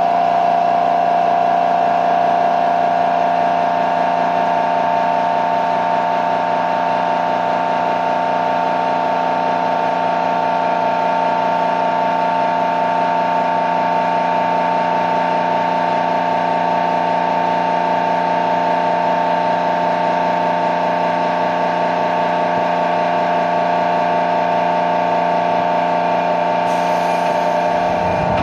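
Motor-generator (MG) of a 205 series 600-subseries electric train car running with a loud, steady whine held at several fixed pitches: an abnormal MG noise. A little before the end the sound shifts, with added hiss and a dip in the lowest tones.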